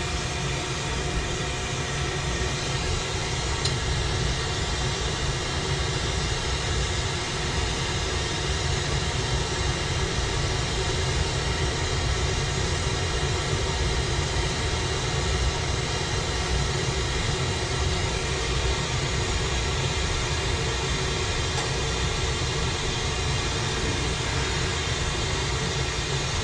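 Glassworking bench torch burning with a steady rushing flame noise, strongest in the low end, while a glass tube is turned in the flame.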